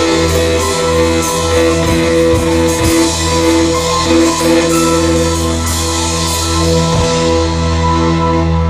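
Rock music with guitar and drum kit, steady and loud.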